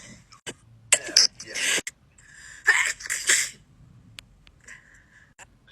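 A person sneezing twice in quick succession, each sneeze a sharp loud burst about a second and a half apart.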